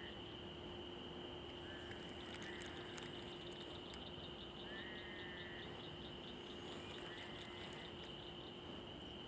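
Faint summer-night chorus of insects and frogs: a steady high-pitched insect trill, a rapid run of ticks in the middle, and short trilled calls repeating every couple of seconds. A faint low hum runs beneath.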